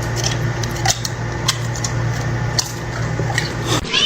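Light irregular clicks and clinks over a steady low hum; the hum cuts off near the end.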